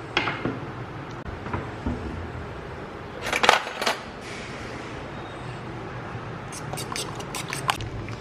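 Metal cutlery clattering in a drawer as a fork is picked out, a loud burst about three seconds in. Near the end comes a rapid run of clinks, about seven a second, as the fork beats raw eggs against a ceramic bowl.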